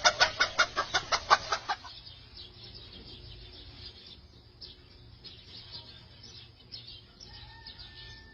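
A chicken clucking in a fast run of about six or seven clucks a second, loud for the first two seconds, then fading to faint clucking.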